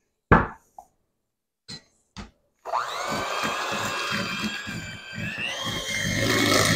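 A few light knocks, then about two and a half seconds in an electric hand mixer switches on. Its motor whines up to speed and runs steadily while the beaters churn cream cheese and powdered sugar in a stainless steel bowl.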